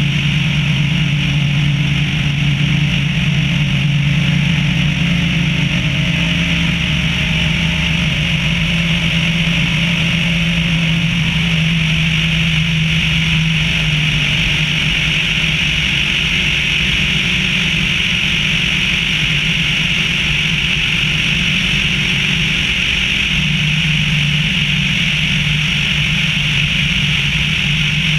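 Tecnam P92 light aircraft's engine and propeller in steady cruise, a constant drone, heard from a wing-mounted camera with airflow rushing over the microphone.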